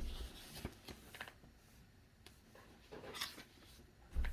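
Faint, scattered rustling of paper as Bible pages are leafed through, with a dull low thump at the start and another near the end.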